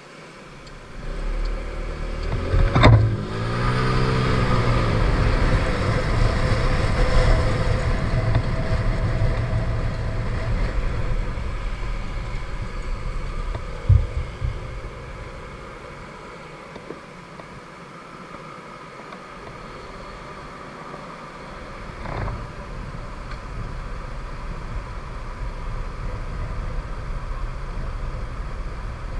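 Kymco 125 cc scooter under way: its engine comes in about a second in and speeds up, mixed with wind rushing over the microphone. It eases off for a few seconds past the middle and picks up again.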